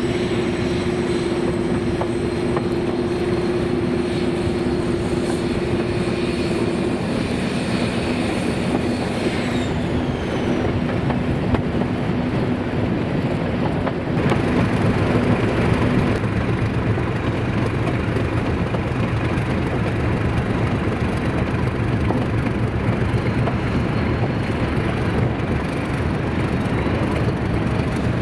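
Diesel locomotive engine running, with steady whines and a high whistle that falls away about nine seconds in. Around fourteen seconds the sound gets a little louder and settles into a lower, steady engine note.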